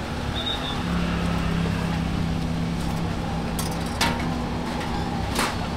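A steady low hum over market background noise. Near the end come two sharp metallic clinks, metal tongs knocking against a steel baking tray.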